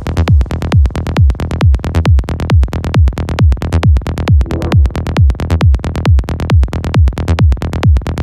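Psychedelic trance music: a steady kick drum at a little over two beats a second, with fast repeating bass and percussion hits between the kicks.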